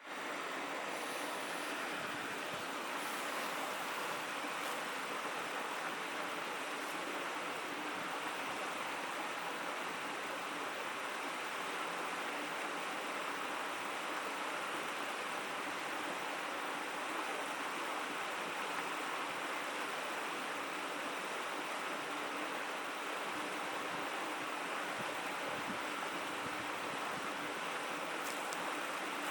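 A shallow river stream babbling steadily, an even rushing murmur of water.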